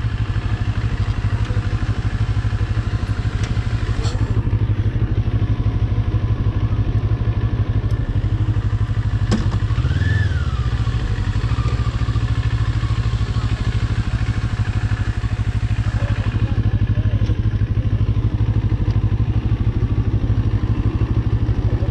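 CFMoto 400NK motorcycle's parallel-twin engine running steadily at low revs while the bike is ridden slowly off-road, with a brief rise and fall in pitch about ten seconds in.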